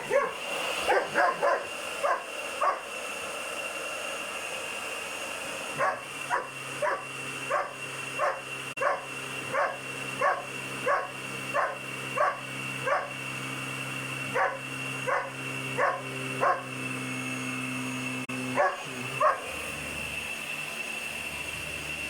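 Young German Shepherd puppy barking repeatedly at a running vacuum cleaner, which gives a steady high whine. There is a flurry of barks at first, a short pause, then a long, regular run of barks ending with two more near the end.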